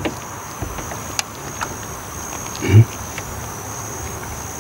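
Round metal doorknob on a locked door being turned and tugged: a few faint clicks and rattles, with one short low sound a little past the middle, and the door stays shut.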